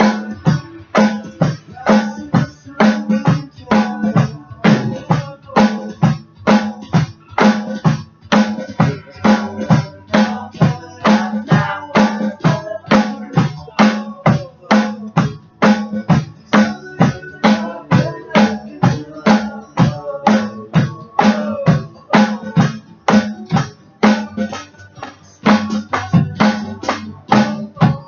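Drum kit played in a steady beat of kick, snare and cymbals, with the other instruments of a backing song sounding underneath.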